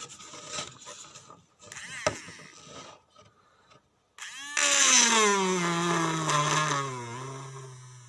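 Small DC motor of a homemade drill whirring up, then its whine sinking steadily in pitch and fading as the motor slows, after a few seconds of faint clicks and rattles.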